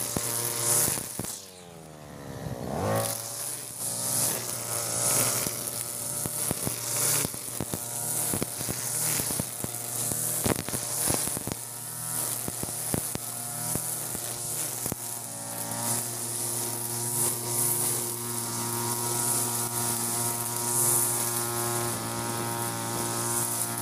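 Two-stroke engine of a Europa Hilt EH4300 (TB43) brush cutter with a nylon-line trimmer head, running at high speed while cutting grass. About two seconds in, the engine drops briefly toward idle and then revs sharply back up, holding a steady high speed after that.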